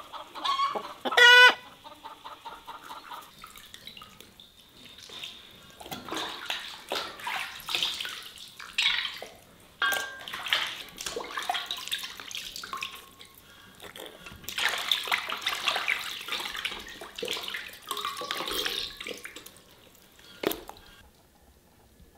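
Hands splashing and sloshing water in an enamel basin, washing plucked quails, in irregular bursts that die away near the end. A loud farmyard fowl call comes about a second in.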